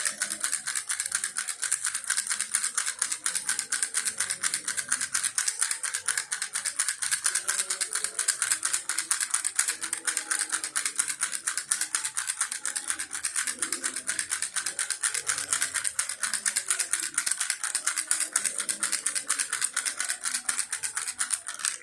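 Baby rattle shaken steadily, a dense fast clicking that cuts off suddenly at the end.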